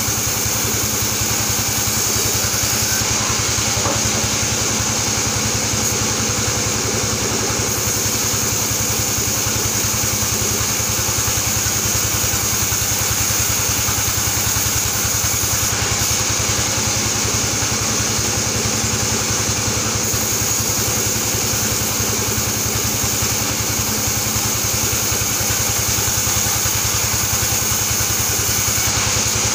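Large band sawmill running steadily while sawing Albasia (sengon) boards: a continuous machine drone with a fast, even low pulse and a constant high whine.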